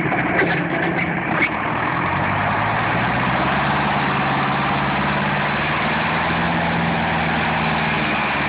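Engine of a John Deere loader tractor running steadily as the tractor moves, with some irregular clatter in the first second and a half before the note settles into an even, steady run.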